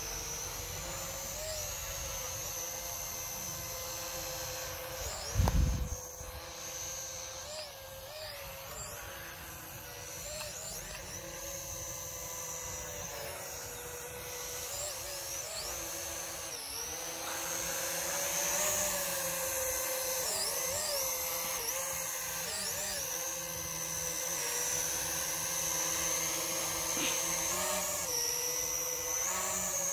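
S19 quadcopter drone flying overhead, its motors and propellers whining with a pitch that wavers up and down as it manoeuvres, growing louder after about eighteen seconds. A brief low thump about five seconds in.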